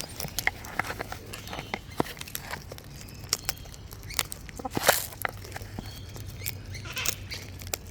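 Wild parrots pecking and cracking seed: irregular sharp clicks and taps of beaks and feet, over a steady low hum. One louder scuffle about five seconds in.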